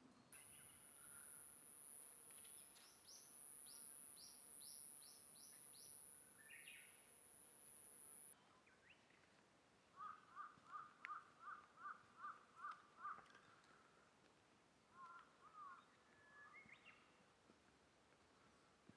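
Wild birds calling: a quick series of falling whistled notes, then about nine evenly repeated notes at roughly three a second, with a few scattered calls after. A steady very high hiss sounds faintly over the first eight seconds and stops abruptly.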